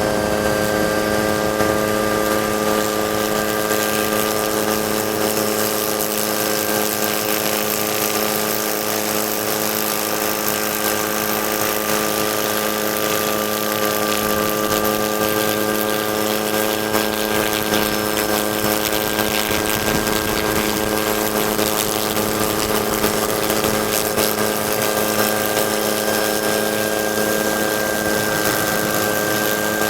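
Camera helicopter's turbine engine and rotor heard from on board: a steady drone with an unchanging whine of several tones.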